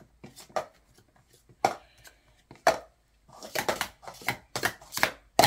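Plastic sport-stacking cups clacking against each other and the mat as a child stacks and unstacks them in a timed run. The clacks are sharp and short, a few at first, then coming quickly in the second half.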